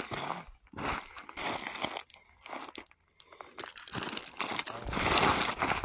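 Irregular crunching footsteps on gravel and rocks, coming thicker and louder near the end.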